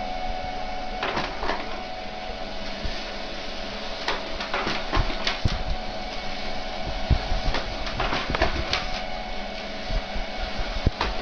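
Desktop inkjet printer running: a steady motor whine with irregular clicks and clacks from the print head and paper feed mechanism.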